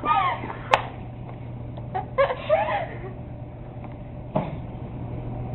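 Brief indistinct voices, a sharp click under a second in and a single knock near the end, over a steady low hum.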